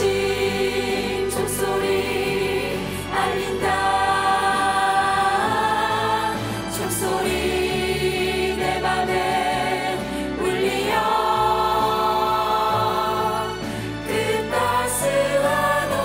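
Cast of men, women and a child singing a Korean Christmas song together as a choir, with held notes, over instrumental accompaniment.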